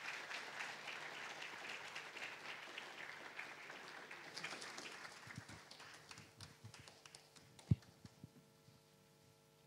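Audience applauding in a theatre, fading out over the first several seconds. A single low thump comes near the end.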